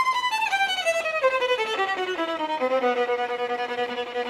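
Solo violin playing a phrase of short notes that step down and down over about two octaves, then settling on one long held low note. It is a musical message for something that goes down.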